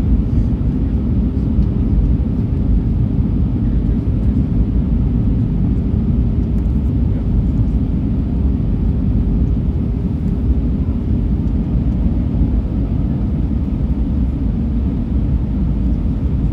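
Airliner cabin noise heard from a window seat on the approach to land: a steady low roar of engines and airflow. A thin steady tone sits beneath it and fades out about two-thirds of the way through.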